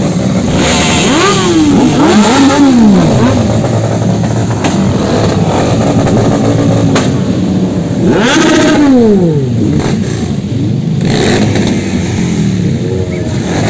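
Several motorcycle engines running as a group of bikes rolls past at low speed, with riders repeatedly blipping the throttles so the pitch rises and falls sharply. The revving is loudest in the first few seconds and again about eight seconds in.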